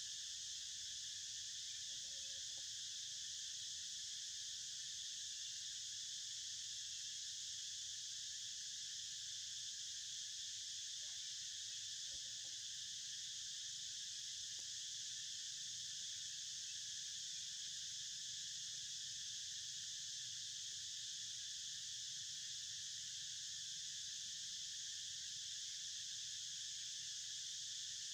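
Steady, high-pitched drone of a chorus of insects, running without a break.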